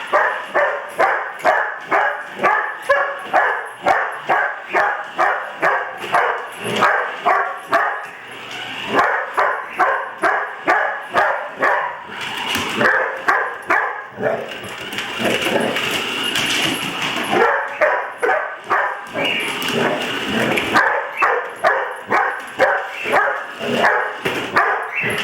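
A dog barking rapidly and repeatedly, about three barks a second, with brief pauses and a stretch of higher whining about two thirds of the way through.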